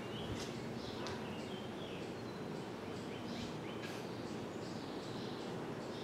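Hunter Infiniti ceiling fan running steadily on its high setting, a continuous rush of air and motor noise. Birds chirp now and then in the background.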